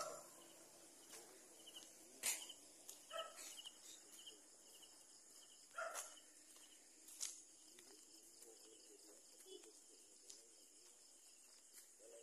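Faint insect chorus: a steady high drone with runs of short repeated chirps. A few sharp clicks break in, about two, six and seven seconds in.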